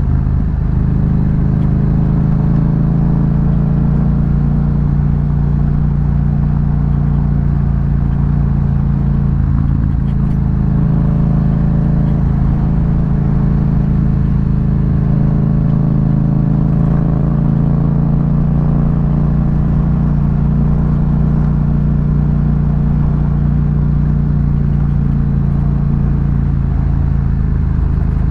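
Yamaha MT-07's 689 cc parallel-twin engine, breathing through an aftermarket Akrapovic exhaust, running under way at a steady pitch while the motorcycle cruises along a dirt road.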